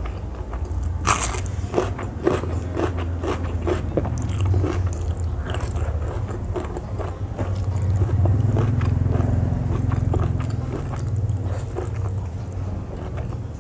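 A person biting and chewing food close to the microphone, with repeated wet crunches and smacks. One loud crisp bite comes about a second in.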